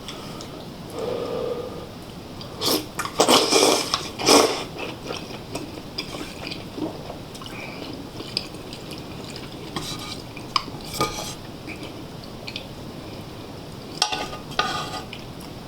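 Cutlery clinking and scraping against dishes while eating, with a loud run of clatters a few seconds in, lighter scattered taps after it, and another clatter near the end.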